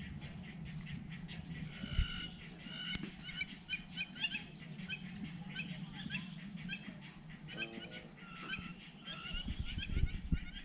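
Many birds calling at once: a dense chatter of short, high chirps with a few longer, clearer calls mixed in. A few low knocks come near the end.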